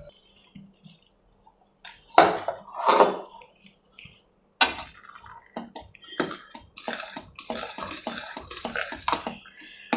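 A pressure cooker being opened and a ladle working through the cooked rice in the metal pot: scattered metal clinks and wet stirring noises, busiest in the last few seconds.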